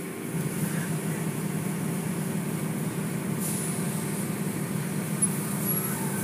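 Automatic tunnel car wash running: a steady low rumble of the wash machinery, spinning cloth brushes and water spray, stepping up slightly just after the start.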